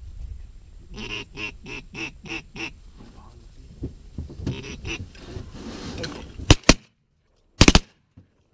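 A quick run of about six quacking calls, a few more about four and a half seconds in, then shotgun blasts: two close together about six and a half seconds in and a rapid volley about a second later.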